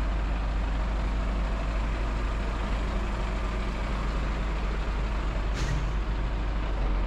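Road traffic on a city street: steady engine and road noise with a heavy low rumble, and one short hiss about five and a half seconds in.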